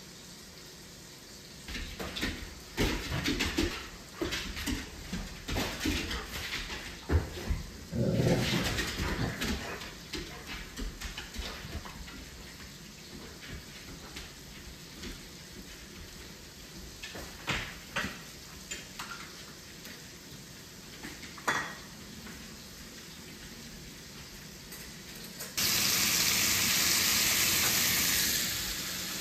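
Dishes, pans and utensils clattering in irregular knocks and clinks for most of the first twenty seconds. Near the end, food starts sizzling loudly in a hot pan all at once, then eases slightly but keeps frying.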